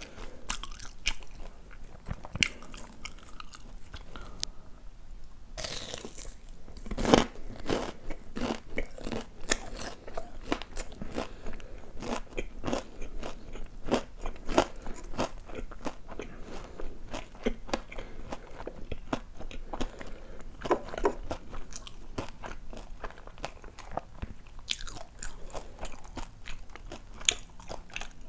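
Close-miked biting and chewing of a crisp breaded, deep-fried cheese pork cutlet: a steady run of crunches, the loudest about seven seconds in.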